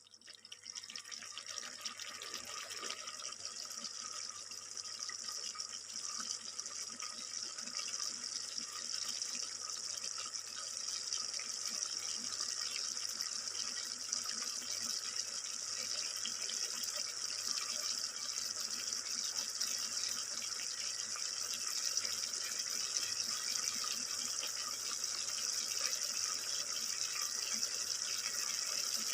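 Chicken feet sizzling as they fry in cooking oil in a pan, a steady hiss that grows louder over the first several seconds and then holds.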